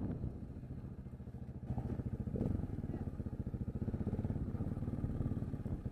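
Motorcycle engine running at low speed as the bike rolls along, a steady rapid throb.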